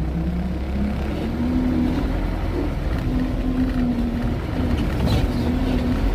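Truck engine running as heard inside the cab while the truck rolls slowly forward: a steady low rumble whose pitch wavers a little. A brief sharp knock or rattle about five seconds in.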